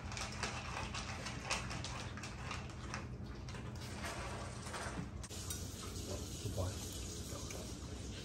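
A dog eating dry kibble from a plastic bowl: quick crunching and kibble rattling against the bowl, as short sharp clicks most dense in the first five seconds or so.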